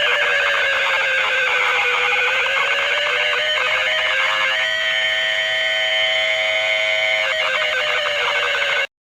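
Emergency alert alarm: a loud, harsh cluster of overlapping steady tones, the lowest one wavering slightly in pitch, that cuts off abruptly near the end.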